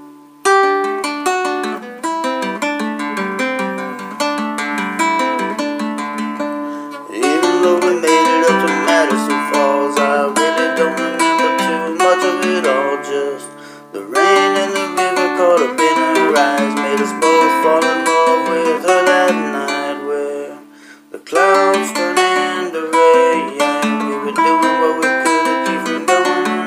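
Acoustic guitar played in an instrumental break of a song, picked notes and chords, stopping briefly twice.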